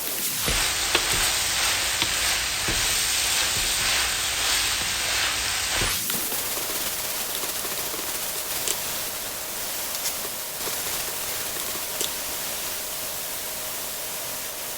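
Food sizzling in a frying pan: a steady hiss with occasional light clicks, which changes in character about six seconds in, when a faint steady hum comes in under it.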